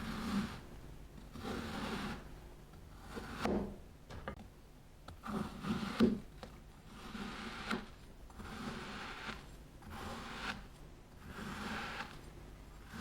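Kinetic sand being scraped and cut in soft, repeated strokes about every one and a half to two seconds, with a few light clicks near the middle.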